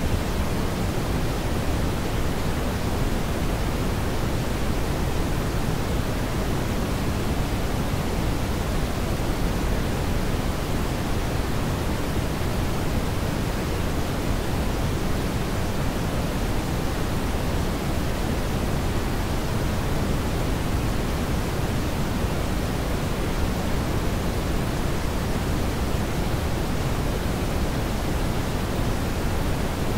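Brown noise: a steady, unchanging rush of noise weighted toward the low pitches, deep rather than hissy.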